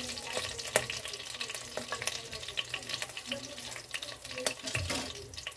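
Hot oil sizzling in a wok, with a steady crackle of small pops as leftover bits fry and the oil spatters, one pop louder than the rest under a second in.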